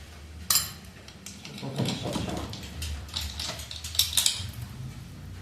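Metal engine parts and tools clinking and clattering as a Honda Biz 110's cylinder head is taken apart: a sharp clink about half a second in and a few more around four seconds in, over a steady low hum.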